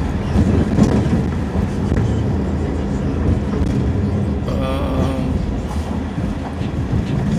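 Car running, with a steady low engine and road rumble heard from inside the cabin. A brief wavering tone comes in about five seconds in.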